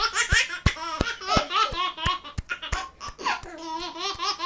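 A baby laughing and giggling in gleeful bursts over a run of sharp hand claps, about three a second.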